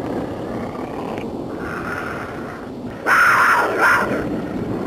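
Intro sound effect: a steady rumbling roar, with a louder animal-like call about three seconds in that lasts roughly a second.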